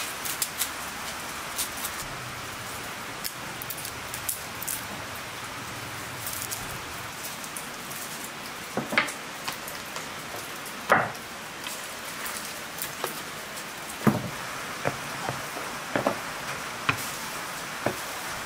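A steady background hiss with faint, papery crackles as a garlic clove is peeled. From about halfway on come a series of knocks and clatters as cuts of raw lamb are handled on a metal tray and a wooden table.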